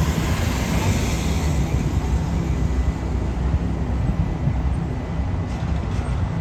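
Steady low rumble of heavy road traffic: the multi-axle heavy-haul rig carrying a long prestressed concrete bridge beam rolls through the intersection, with other vehicles passing close by.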